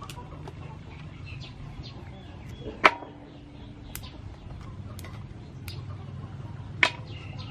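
Two sharp knocks, one about three seconds in and one near the end, over faint bird chirps and a low steady hum.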